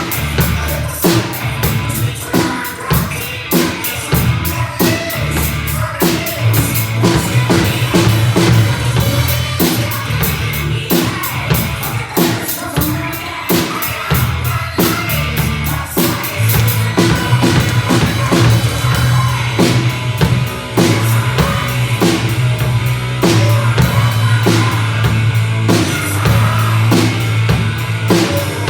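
Rock music with a drum kit playing a steady beat of kick, snare and cymbal hits over a sustained bass line.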